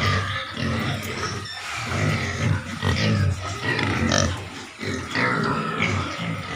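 Piglets grunting continuously.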